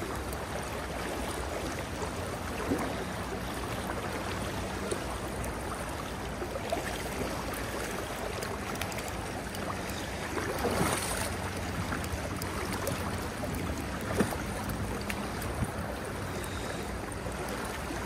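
Creek water rushing steadily over a shallow riffle, heard close to the water's surface.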